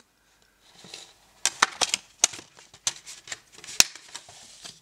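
Clicks and clacks of hard plastic as a Blu-ray digipak's clear disc trays are handled and a disc is worked off its hub, with one sharp click near the end.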